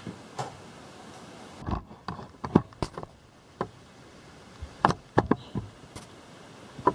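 Scattered light knocks and clicks of handling, about a dozen over a few seconds. The saw's engine is not running.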